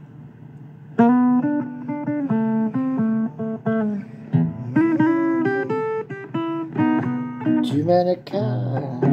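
Blues song intro on guitar, single notes picked in a steady run starting about a second in; a singing voice comes in near the end.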